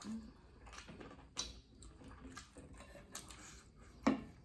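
Close-up eating sounds: faint chewing, lip smacks and finger-licking from people eating rice and sambal by hand, with scattered small clicks and a sharper click near the end.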